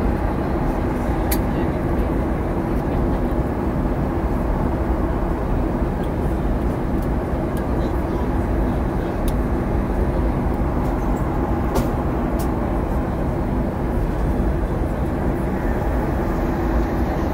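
Steady airliner cabin noise in cruise: a constant low rush of airflow and jet engines with a steady hum underneath, and a few faint ticks.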